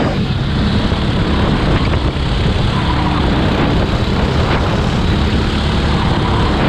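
Go-kart engine noise, loud and steady.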